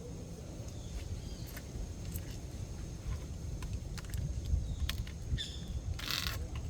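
Outdoor ambience with a steady low rumble, scattered sharp clicks, a short hiss about six seconds in, and a few faint bird chirps.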